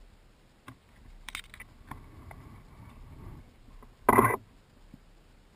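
Small clicks and scrapes of fishing tackle being handled in a canoe, then one short, loud splash about four seconds in as the bass is dropped back into the creek over the side of the canoe.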